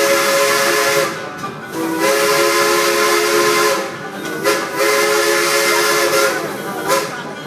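Steam locomotive's chime whistle blowing several blasts, each sounding a chord of several tones over a steam hiss. The blasts run long, long, short, long, with a brief toot near the end. That is the standard signal a train gives when approaching a road crossing.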